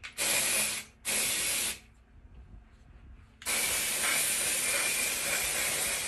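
Aerosol can of temporary coloured hair spray spraying in three bursts: two short sprays under a second each, then a longer one of about three seconds near the end.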